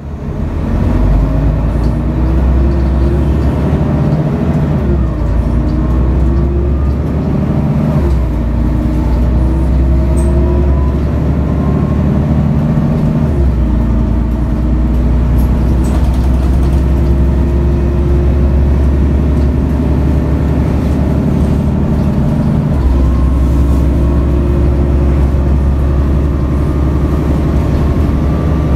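Mercedes-Benz O530 Citaro bus's OM457hLA straight-six turbo diesel, heard from inside the cabin while the bus drives. The engine note rises under acceleration and steps down several times as the ZF Ecomat automatic gearbox changes gear.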